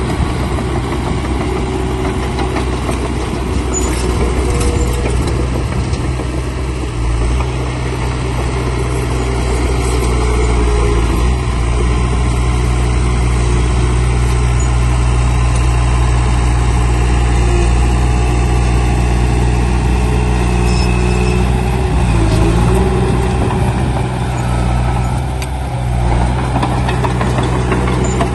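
Heavy diesel engine of earthmoving machinery running steadily, with a few brief dips in load.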